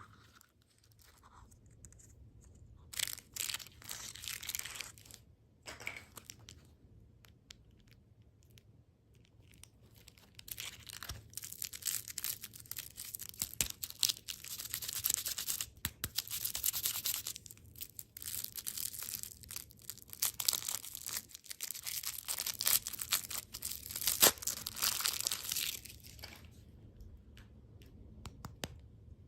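Plastic candy wrappers being crinkled and torn open: a few bursts of crackling, then a long run of dense crinkling that stops a few seconds before the end.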